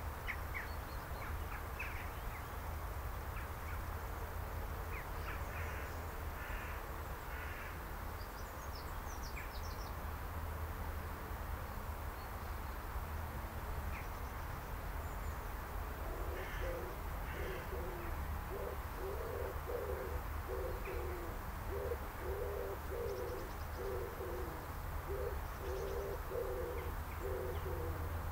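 A dove cooing in a series of repeated low phrases, about one every two seconds, starting about halfway through, with small birds chirping briefly in the first half over a steady low rumble.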